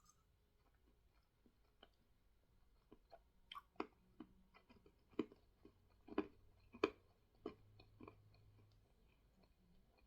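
Faint, irregular clicks and pops of a mouth chewing cola-flavoured bubble candy that fizzes and foams in the mouth.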